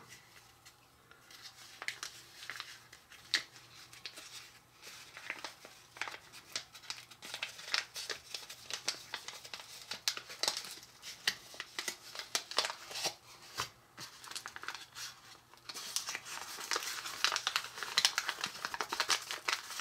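A small Easy-Bake chocolate dip mix packet crinkling and rustling as it is handled, opened and emptied, with scattered clicks and rustles that grow busier near the end.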